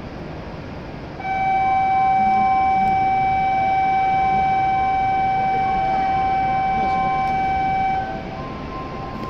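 Station departure signal on a Shinkansen platform: a loud electronic buzzer tone, steady and unchanging in pitch, starts about a second in and is held for about seven seconds before cutting off. A fainter higher tone is heard around it, over the steady hum of the station.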